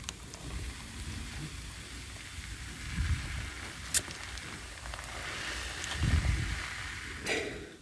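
Water sprayed down from above in a steady hissing shower, like rain, falling on people. It stops shortly before the end, and there is one sharp click about four seconds in.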